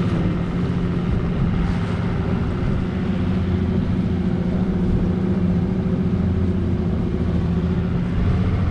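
Evinrude E-TEC G2 250 hp two-stroke outboard running at a steady cruising speed, with the rush of water and wind as the boat is under way.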